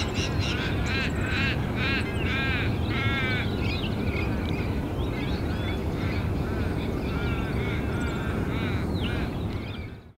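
Birds calling over a steady low rumble. A quick run of harsh, arching calls is loudest in the first four seconds, followed by scattered thinner calls, and the sound fades out just before the end.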